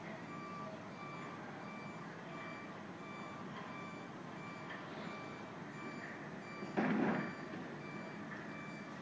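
Construction vehicle's reversing alarm beeping steadily, about two beeps a second, over a bed of site noise. About seven seconds in comes a brief loud clatter of noise lasting about half a second.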